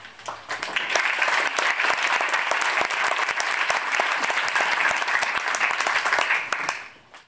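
Audience applauding, building up within the first second, holding steady, then dying away near the end.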